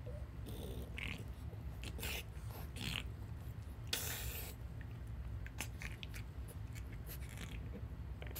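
Two French bulldogs play-wrestling, mouthing and chewing at each other with short noisy breaths and snuffles; the longest, about half a second, comes about four seconds in. A steady low hum runs underneath.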